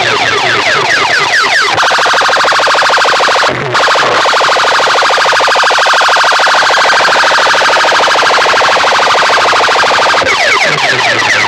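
Electronic siren effects blasted through a DJ box sound system's stacked horn loudspeakers: fast repeated rising sweeps, switching about two seconds in to a rapid pulsing warble that cuts out for a moment, and back to the rising sweeps near the end.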